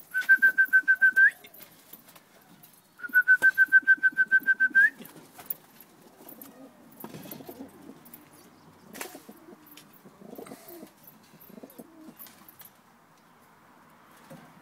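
In a pigeon loft, two loud runs of rapid, evenly spaced high peeps in the first five seconds, each ending in a short upward squeak. Softer low pigeon cooing and a few sharp flutters or clicks follow.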